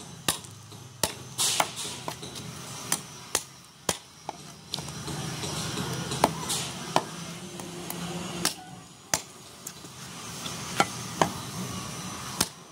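Meat cleaver chopping goat meat on a wooden stump chopping block: about a dozen sharp, irregular chops, some coming about half a second apart, others with pauses of a second or more.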